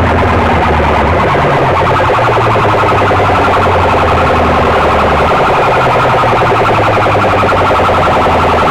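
Massed aluminium horn loudspeakers blasting a loud, heavily distorted, rapidly warbling electronic sound over a steady low drone, without a break.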